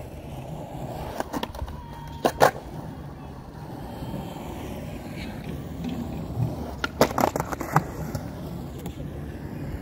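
Skateboard wheels rolling on concrete, with sharp clacks of the board hitting the ground: a loud pair about two and a half seconds in and a quick cluster around seven seconds in as a trick is landed.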